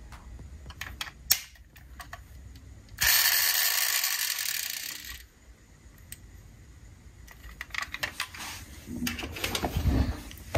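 Small clicks and knocks of diecast toy cars and their packaging being handled, with a sharp click about a second in. About three seconds in, a loud rasping noise lasts about two seconds, and a busier run of clicks and rustles follows near the end.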